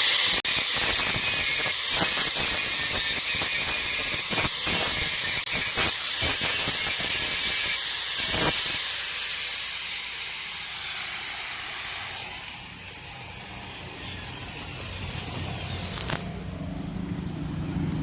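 Handheld angle grinder grinding down a ceiling fan's rotor, which has swollen from rust and water. The grinding is a loud, high hiss with brief breaks for about the first nine seconds, then fades away, leaving a quieter background.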